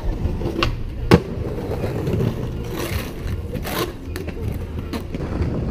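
Skateboard wheels rumbling over stone paving during a stair trick, with a sharp crack about a second in and further knocks and scrapes of the board around three to four seconds in.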